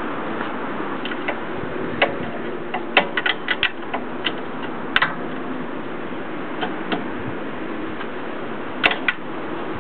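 Irregular sharp clicks and taps of hand tools on metal parts: a single one, then a quick cluster of five or six about three seconds in, and more single ones later, over a steady background hiss.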